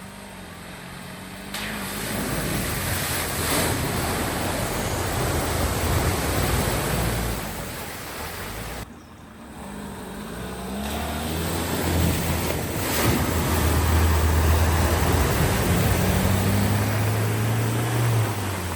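Vehicles driving through a flooded ford: an engine running under load with a steady wash of spraying water. It cuts off abruptly about nine seconds in, then another engine and its splashing build up again.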